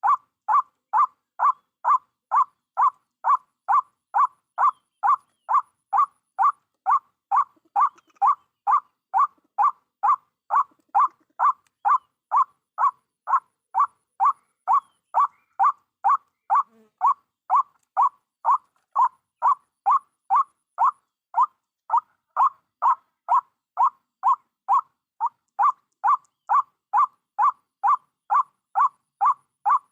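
White-breasted waterhen call: a short note repeated evenly, about twice a second, every note alike.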